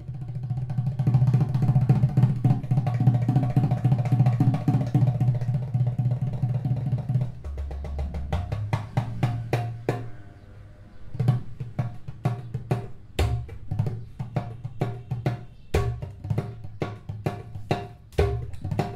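Clay udu drum with drum heads set into its body, played with both hands: a fast, dense rolling pattern of deep resonant strokes for about the first seven seconds, then sparser sharp slaps and taps on the heads and clay, with a few deep booms between them.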